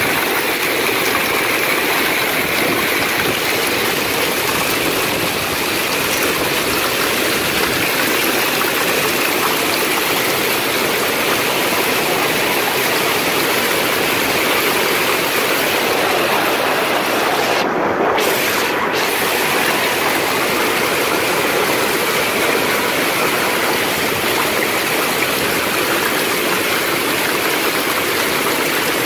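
Heavy hail and rain pelting pavement and parked cars in strong wind: a loud, steady rush of noise.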